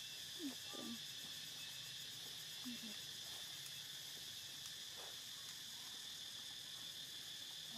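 Steady, high-pitched drone of an insect chorus, with a few brief, faint sliding calls about half a second in and again near three seconds.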